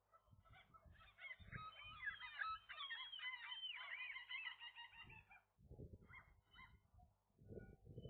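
Faint chorus of gulls calling from about a second in until about five and a half seconds: many rapid, arching calls overlapping one another. Short low rumbles come and go around them.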